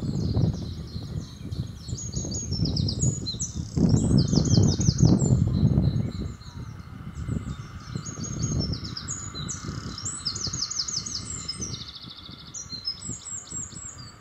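Birds singing in quick high chirps and trills over the low rumble of the steam locomotive U class no.1638 and its train drawing slowly into the platform. The rumble is loudest about four to six seconds in, then fades while the birdsong carries on.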